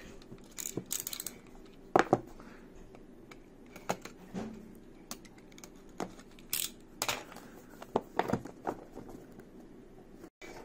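Cardboard box being handled and cut open: scattered clicks, taps and short scrapes as a utility knife slits the box's seal, over a faint steady hum.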